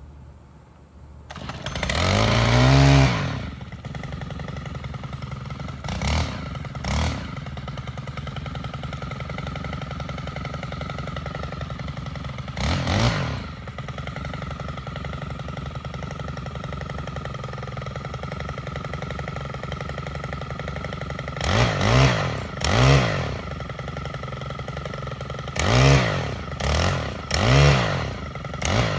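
Stihl FS 110 string trimmer's 4-MIX four-stroke engine catching about a second in and revving hard, then idling steadily with short throttle blips, a cluster of four quick ones near the end. It runs well after being stored through a storm.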